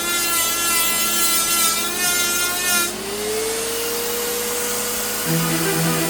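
A power tool working wood, with a wavering whine over a rasping hiss that stops abruptly about three seconds in. After it, steady tones remain, and pulsing music-like notes join near the end.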